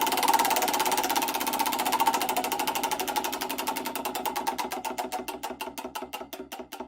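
Supercar V12 engine running down: its rapid exhaust pulses slow steadily and fade, then cut off suddenly.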